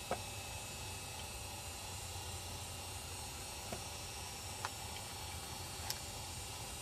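Quiet outdoor background: a steady faint hiss over a low hum, broken by four faint, sharp clicks or snaps spread unevenly through it.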